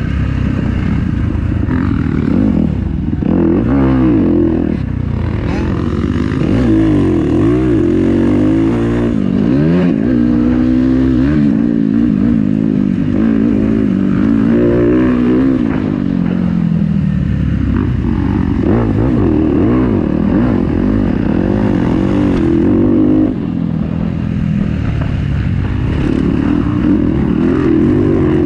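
Motocross dirt bike engine heard from on the bike, revving up and down again and again as the rider accelerates and backs off around the track.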